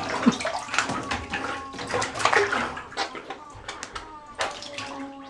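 Bathwater splashing and sloshing in a filled bathtub as a hand swishes a tennis ball through it beside a puppy, in irregular splashes. Near the end a steady held tone with several pitches begins.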